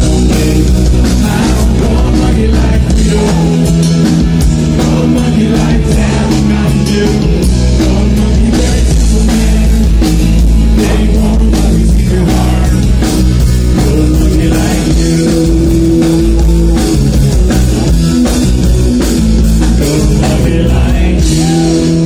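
Live rock band playing at full volume: electric guitars, bass and drum kit, with a male lead singer, heard from within the audience.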